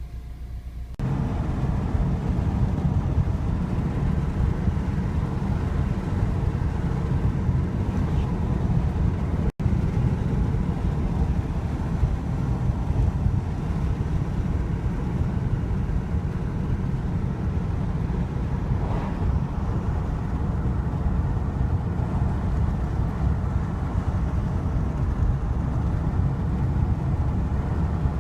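Steady low road and engine rumble inside a moving vehicle. It cuts out for an instant about ten seconds in.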